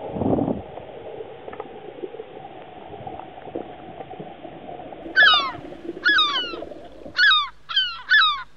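Muffled underwater rush of water heard through the camera in a tuna pen, with a thump right at the start. About five seconds in, five short loud pitched calls follow, each sliding down in pitch, closer together near the end.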